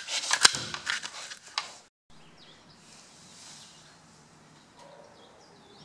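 The noise of a scuffle: rapid knocks, clicks and rustling that break off suddenly about two seconds in. After that comes a faint steady hum with a few faint high chirps.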